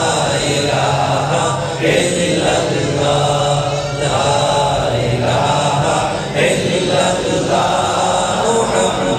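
A man chanting religious recitation in drawn-out melodic phrases, with brief pauses between them.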